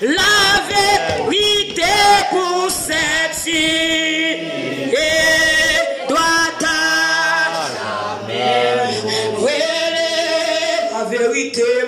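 Hymn singing in church, led by a woman singing into a handheld microphone, with other voices joining in.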